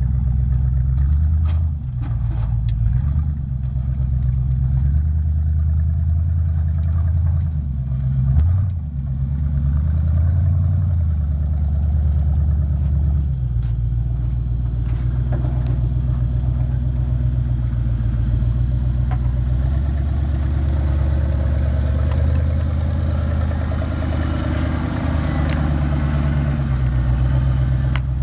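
Engine of a homemade 6x6 off-road truck running, its revs stepping up and down as it crawls over a pile of loose logs and then drives off across sand. There are a few sharp knocks in the first half, where the truck climbs the logs.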